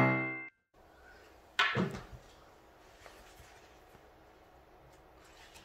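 The last chord of a keyboard jingle dies away, then a hardcover picture book is handled on a wooden table: one sharp thump about a second and a half in, then faint handling noise as the book is opened.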